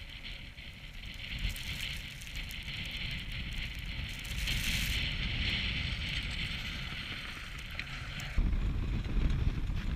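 Wind buffeting the microphone with a steady rumble and a high hiss that fades and returns. The rumble gets suddenly louder a little past eight seconds in.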